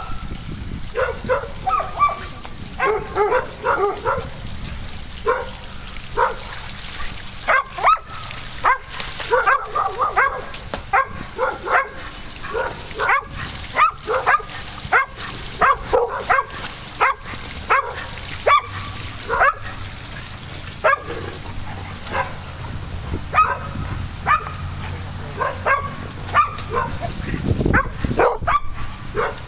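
Dogs barking and yipping in play, short sharp barks coming one or two a second.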